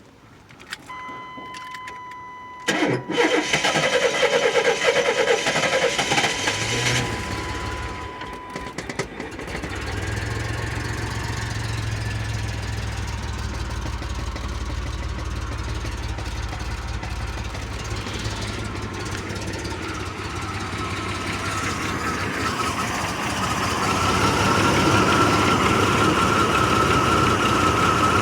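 Chevrolet Blazer engine started: a steady electronic warning tone sounds first, then the starter cranks and the engine catches about three seconds in and settles into an idle, which the owner says is rough. Near the end the idle gets louder, with a steady whine over it.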